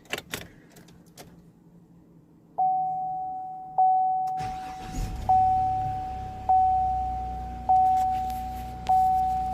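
A few clicks of a key in a 2016 Chevrolet Silverado's ignition, then the truck's dashboard warning chime starts ringing, one tone repeating about every second, and about halfway through the engine cranks, catches and settles into a steady idle under the chime, showing that the newly programmed key starts the truck.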